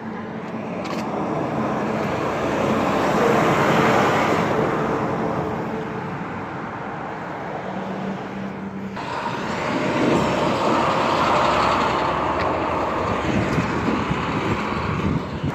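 Road traffic with trucks passing close by: a steady rushing noise that swells as each vehicle goes past, peaking about four seconds in and again around eleven seconds, with an abrupt change about nine seconds in.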